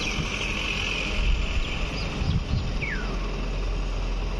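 Outdoor town ambience: a low steady rumble with an even hiss, and a few short falling bird chirps around the middle.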